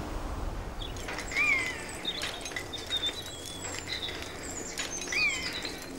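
Woodland birdsong: several small birds chirping and whistling, with a short call that rises and falls heard twice, about a second and a half in and again near the end. A few faint clicks and rustles sound between the calls.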